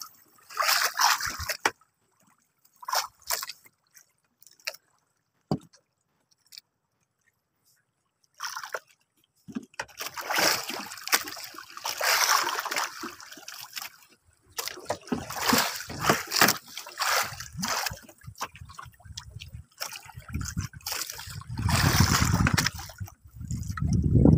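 Water sloshing and splashing against a small outrigger boat's hull in irregular bursts, sparse at first and then nearly continuous from about ten seconds in. A low rumble builds near the end.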